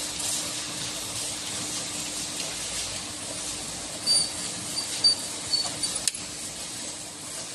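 Bottled-water filling line running: a steady hiss over a low hum, with a few brief high squeaks past the middle and one sharp click about six seconds in.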